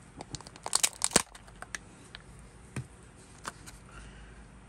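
Crinkling and clicking of Kinder Joy packaging handled by hand: a cluster of crackles about a second in, then scattered light clicks.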